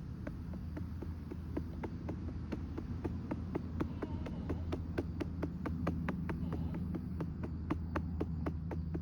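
Rapid, even patting on the back of a RealCare infant simulator doll, about four pats a second, to bring up a burp, over a steady low hum.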